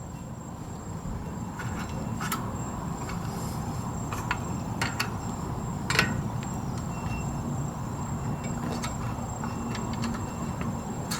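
Scattered light metallic clicks and taps of a small screwdriver prying at a drum-brake wheel cylinder and its spring, a few seconds apart, over a steady low hum.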